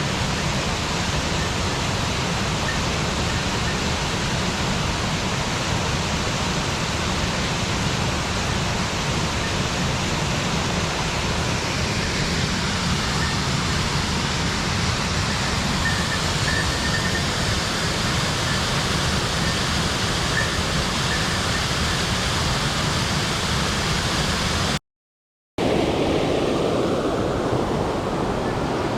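Mountain stream water rushing over rocks, a loud steady rush. About 25 seconds in it cuts out for under a second and comes back deeper.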